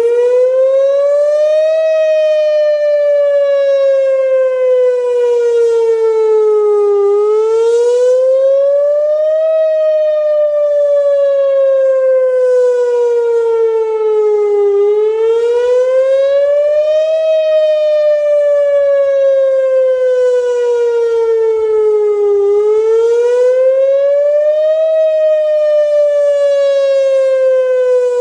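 Whelen WPS-2906 electronic outdoor warning siren sounding its wail tone in a test. Its pitch climbs quickly over about two seconds, then sinks slowly over about five seconds, repeating about every eight seconds.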